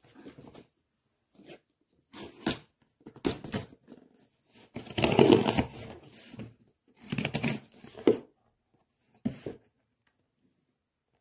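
A cardboard shipping box being torn open and handled: irregular bursts of tearing and rustling, the longest and loudest about five to six seconds in.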